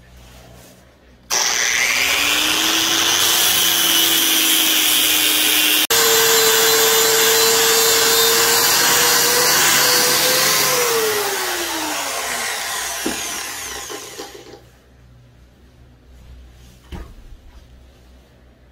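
Angle grinder with an abrasive disc grinding the bevel of a hardened steel knife blank made from a bearing race. It starts about a second in, runs steadily for about ten seconds, then spins down with a falling whine. A few light knocks follow.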